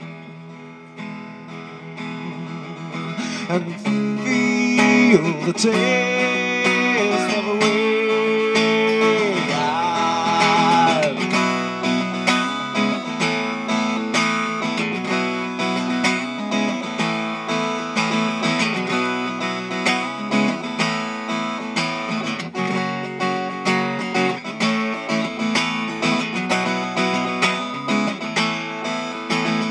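Steel-string acoustic guitar played solo, strummed and picked in a steady rhythm. From about four seconds in until about eleven, a voice holds long wavering notes over it without words.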